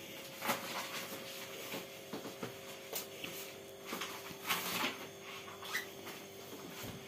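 Paper and a notebook cover rustling as a diary is handled, turned over and written in with a pencil: a series of short rustles and scrapes, the loudest about two thirds of the way through, over a faint steady hum.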